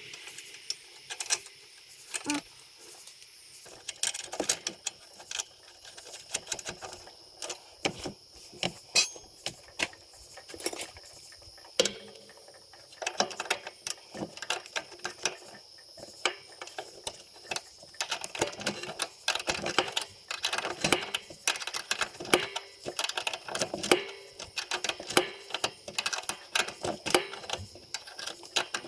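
Irregular metallic clicks, knocks and rattles of hand tools and metal parts being handled while a mower's drive control cable is fitted, coming faster in the second half. A faint steady high tone runs underneath.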